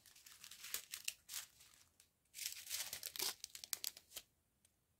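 Faint crinkling of small clear plastic sachets of round resin diamond-painting drills being handled, in two spells with a short gap between them.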